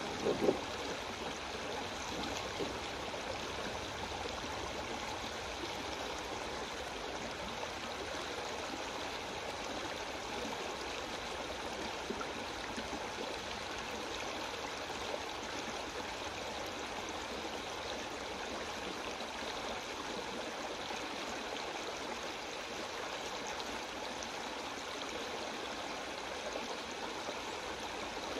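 Creek water rushing steadily over a shallow sandstone riffle, with a brief louder knock about half a second in.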